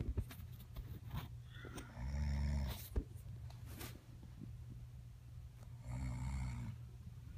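A sleeping woman snoring: two low, rattling snores about four seconds apart, each lasting under a second, with a short sharp click between them.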